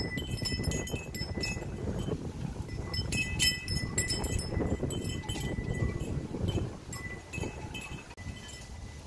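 Strong wind gusting over the microphone, with repeated light metallic clinks that ring on briefly, scattered through the gusts.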